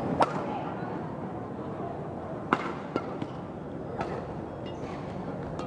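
Badminton rally: several sharp racket strikes on the shuttlecock, the loudest just after the start and about two and a half seconds in, with a few short high shoe squeaks on the court floor near the end.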